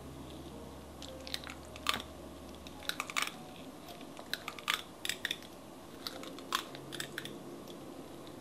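Kitchen food-preparation handling sounds: a string of irregular sharp clicks and crunches.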